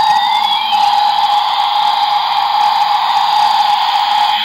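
A toy helicopter's electronic sound chip: a siren sweep that ends about a second in, then a steady buzzing hiss with one held tone.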